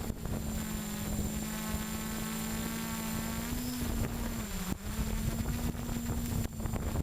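Six-rotor hexacopter's motors and propellers whirring steadily, heard close up from the camera it carries. The pitch sags briefly and recovers a little past halfway. Low wind buffeting runs underneath.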